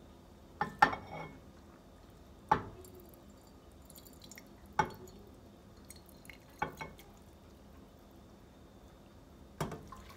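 A metal fork clinking against a pot and bowl while steaming ramen noodles are lifted out: about six sharp clinks at irregular intervals, two close together about a second in, then single ones every two seconds or so.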